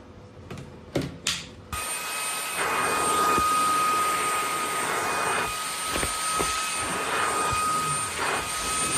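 SilverCrest SHAZ 20 A1 20 V cordless cyclonic vacuum cleaner switched on after a few handling clicks. It starts abruptly under two seconds in and runs steadily with a high motor whine, its suction noise swelling and dipping slightly.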